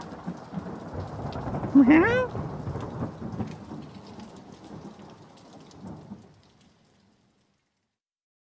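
Rain sound effect with low thunder rumbling under it, fading away about six seconds in. About two seconds in, a short voice-like cry that rises and falls is heard over the rain.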